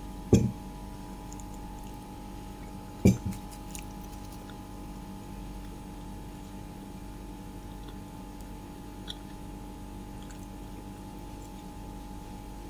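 A person eating paratha with potato curry. There are two short dull thumps, about half a second in and again about three seconds in, then sparse faint wet clicks over a steady hum.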